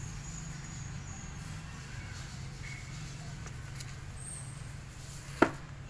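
A steady low mechanical hum, with one sharp click about five and a half seconds in.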